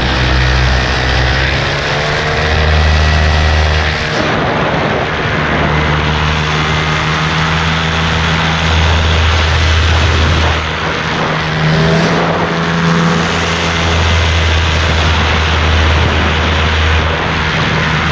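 Paramotor engine and propeller running steadily in flight, heard close up from the pilot's harness, its level wavering only slightly.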